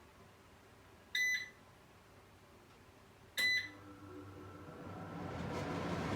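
Kitchen range hood being switched on: its control panel beeps twice, about two seconds apart. The extractor fan then starts and spins up, a whirring rush with a faint motor hum that grows steadily louder.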